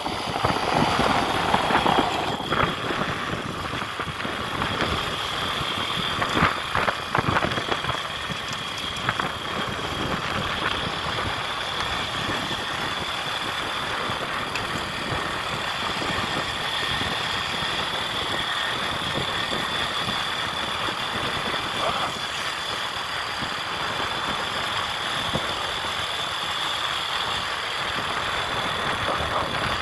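A motor vehicle's engine running steadily, with a continuous noisy rumble and a steady high whine; a few brief louder knocks and rattles come in the first several seconds.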